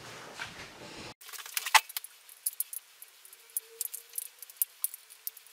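Light, irregular clicks and ticks of a model diesel locomotive being handled, its body and chassis knocking as the body is fitted back on. One sharper click comes a little under two seconds in.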